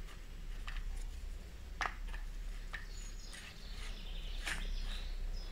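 A few faint, sharp clicks and taps from a .22 rifle being handled while a sound moderator is screwed onto its muzzle, over a low steady background hum, with a few faint bird chirps.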